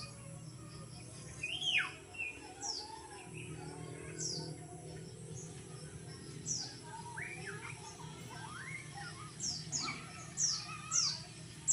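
Small birds chirping: short, high chirps that drop in pitch, repeating irregularly and coming closer together near the end, with a few lower calls among them. A steady low hum runs underneath.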